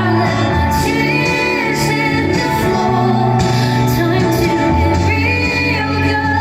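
Live pop band music in a concert hall: held bass notes changing every second or two under a steady sustained tone, with brief wordless female vocals about a second in and again near five seconds.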